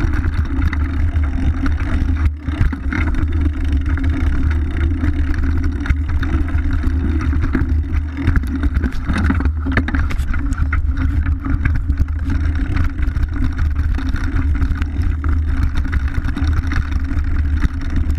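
Mountain bike riding down a rough woodland trail, heard from a chest-mounted action camera: a steady wind rumble on the microphone under the hiss of tyres on dirt and leaves, with frequent knocks and rattles as the bike goes over bumps.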